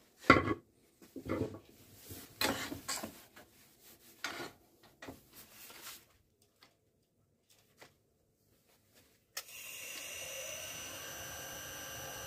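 A handful of irregular knocks and scrapes, then about three quarters of the way through a wood lathe starts suddenly and runs steadily, a constant hum with several high whining tones, as it spins a brass bar held in its chuck.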